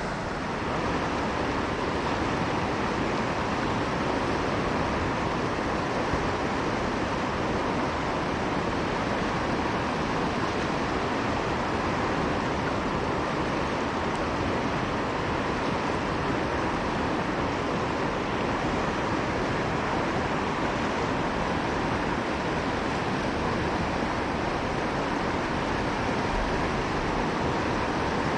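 Steady rush of river water flowing, an even wash of current with no breaks.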